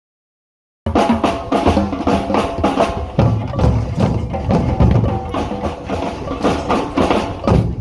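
Drums played together in a fast, driving rhythm, cutting in abruptly about a second in.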